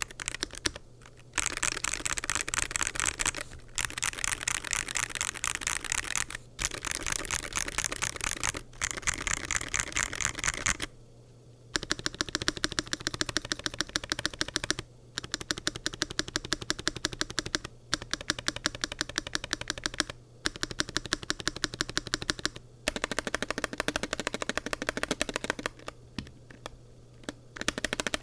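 Rapid typing on a WLmouse Ying75 mechanical keyboard with TTC Shadow magnetic Hall-effect switches, double-shot PBT keycaps, an aluminium plate and a forged carbon-fibre gasket-mounted case. The keystrokes come in fast runs of a few seconds each, broken by short pauses.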